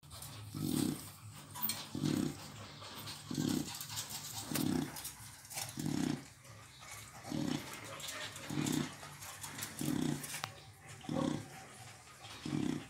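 A nursing chow chow's slow, heavy breathing: ten even low pulses, about one every 1.3 seconds.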